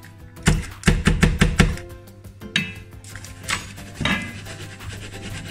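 A metal springform pan of cheesecake batter knocked against the countertop about six times in quick succession, settling and levelling the batter, followed by a few lighter metallic clinks.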